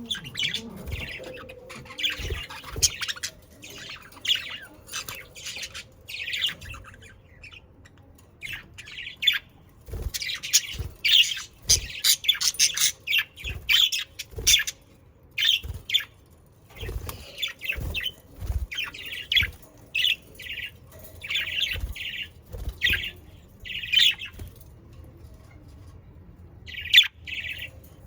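Budgerigars chirping and squawking in a busy, overlapping chatter of short calls, with a lull of a couple of seconds near the end. Occasional soft low thumps run underneath.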